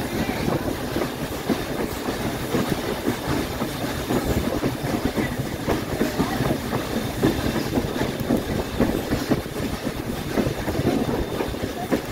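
Steam-hauled train running, heard from an open-air car right behind 2-6-6-2 articulated steam locomotive 1309: a steady rumble of wheels on the rails with frequent irregular clacks.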